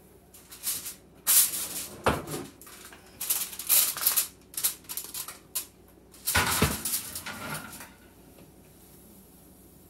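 Aluminium foil crinkling as a foil-covered glass baking dish is handled and set into an oven, with two sharp knocks of the dish against the wire oven rack.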